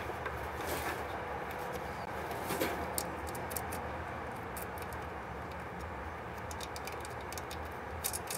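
Light scattered clicks and small metallic taps of a fastener and a Phillips screwdriver being handled and set in place, with a cluster of sharper clicks near the end, over a steady background hiss and hum.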